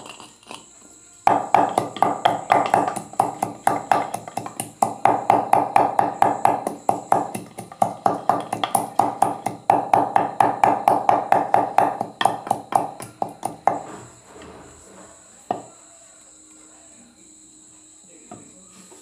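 Wooden pestle pounding ingredients in a stone mortar, rapid steady strokes of about four to five a second that stop about fourteen seconds in, followed by one last knock. A steady high chirping of crickets runs underneath.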